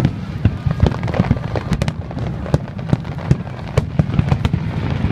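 Fireworks crackling overhead: a dense run of sharp, irregular pops and snaps over a steady low rumble.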